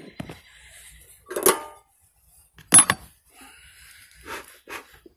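Two sharp metallic clanks about a second apart, the second louder and ringing briefly, as the metal bee smoker is handled; a faint hiss follows.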